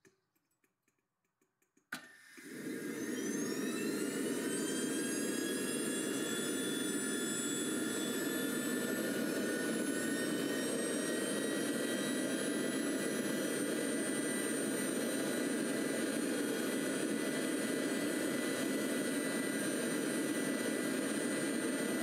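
Small model jet turbine engine starting on its test stand. It cuts in about two seconds in, its whine rising for a second or two, then runs steadily at speed with a high whistle over a strong rushing exhaust.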